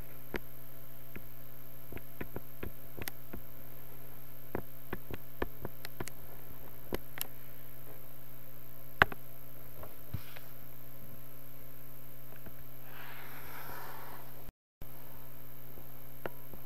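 Scattered light clicks of a computer's pointing device as dots and a line are drawn on screen, one louder click partway through, over a steady electrical hum. The sound drops out for a moment near the end.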